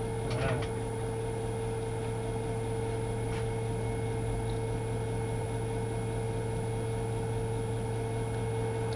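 Lathe running at a steady speed, a constant hum with a held tone, with a couple of faint light clicks near the start and about three seconds in.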